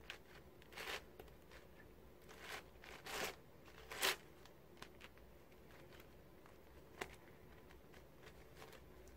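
ShengShou 12x12 plastic puzzle cube being scrambled by hand: faint, irregular clicks and scrapes as its layers are turned, the loudest about four seconds in.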